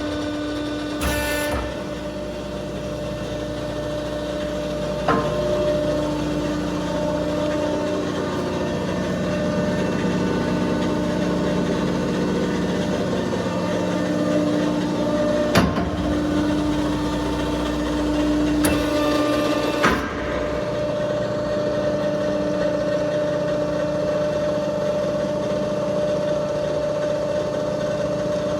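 Balemaster horizontal baler running with a steady mechanical hum, broken by a handful of sharp clicks and clanks.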